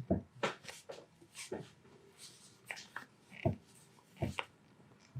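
Scattered short, soft clicks and thumps with light rustling, about a dozen spread irregularly, from hands, clothing and body shifting on a chiropractic treatment table as a patient is positioned and adjusted.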